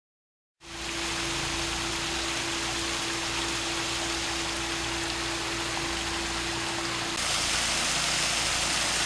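Water running steadily over rocks in a backyard garden stream, with a steady hum alongside. It starts suddenly about half a second in; about seven seconds in the sound changes abruptly, the water hiss louder and the hum gone.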